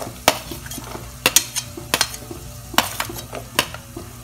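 Perforated steel ladle scraping and tapping chopped green beans off a steel plate into a pan of hot oil, about seven sharp metallic clicks over a low sizzle of frying onions.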